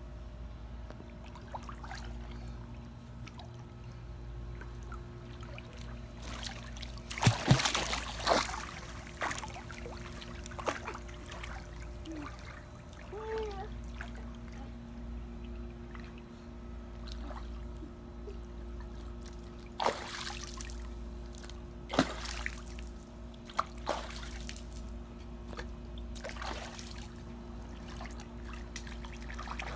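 A toddler splashing in a swimming pool: a cluster of splashes about seven seconds in, then single splashes around twenty, twenty-two and twenty-four seconds. A steady hum runs underneath.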